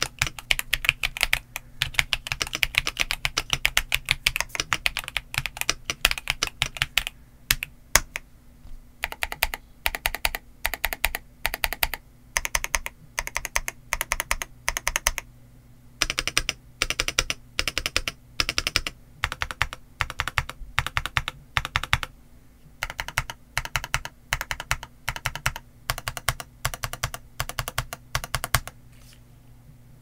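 Typing on a Royal Kludge S98 mechanical keyboard in stock form, with pre-lubed pale green light tactile switches and doubleshot ABS Cherry-profile keycaps. A fast, dense run of keystrokes lasts for the first several seconds, then gives way to short bursts of keystrokes with brief pauses between them.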